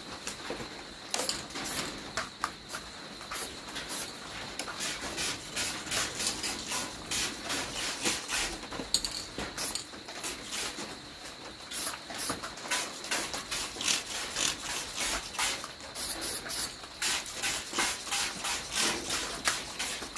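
Aerosol spray paint can fired in many short, irregular bursts of hiss, spotting layers of paint onto a panel for a fake patina.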